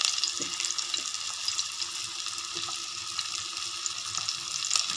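Breadcrumb-coated chicken patties shallow-frying in oil over a low flame: a steady sizzle with small crackling pops.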